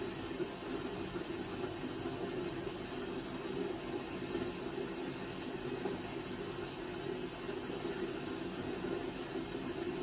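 1961 Hoover Keymatic front-loading washing machine making a steady hiss while its drum stands still.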